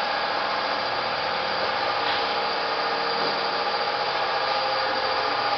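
CNC milling machine running: a steady mechanical whir with several steady tones through it.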